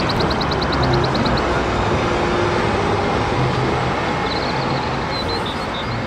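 Red double-decker city bus driving past on a street with traffic: steady engine and road noise. A fast run of high ticks sounds in the first second and a half, and a few short high chirps come near the end.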